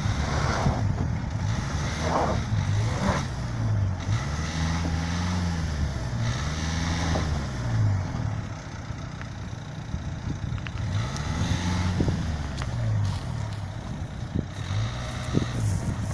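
Dacia Duster SUV's engine revving up and down in repeated surges as it crawls under load over a rocky slope, with a few short sharp clicks in the second half.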